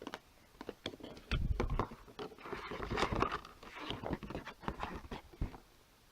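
Cardboard microphone packaging being handled and opened by hand: scattered rustles, scrapes and light knocks, with a heavier thump or two along the way.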